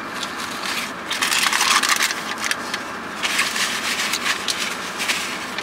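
Paper napkin and fast-food sandwich wrapper rustling and crinkling as they are handled, with many small crackles.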